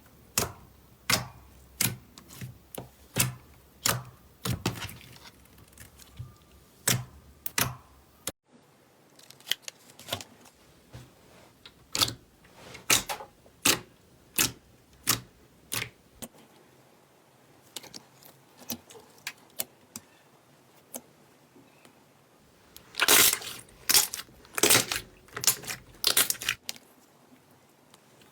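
Slime being squeezed and poked, making a string of sharp, separate clicks and pops, denser and louder near the end.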